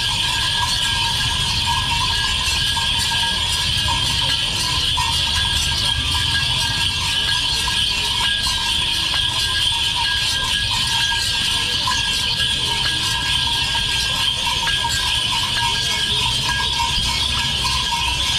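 Steady, dense din of a festival crowd at a procession of dancing devotees, with a constant shrill ringing and many small rattling clicks throughout.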